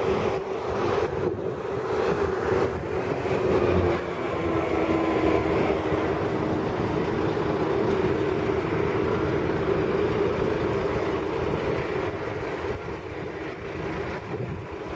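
Steady running noise of a road vehicle in motion: an even engine drone over road rumble, with no bangs.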